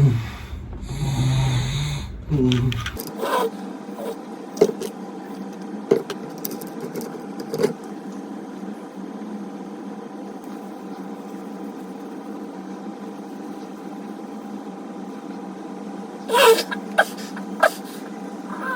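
A man snoring loudly in his sleep, deep rasping breaths for the first few seconds, cut off abruptly. After that a steady hum, broken by scattered light clicks and taps, with a cluster of sharper clicks near the end.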